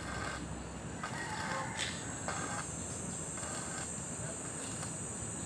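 Insects, crickets or cicadas, keeping up a steady high-pitched trill that grows louder about two seconds in.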